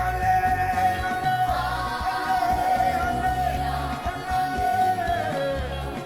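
Music with singing: a long note held for about five seconds, sliding down near the end, over a steady bass line.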